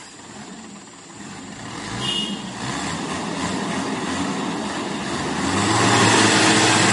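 Whooshing rush of noise that swells steadily louder, with a low steady hum joining about five and a half seconds in: a logo-intro sound effect.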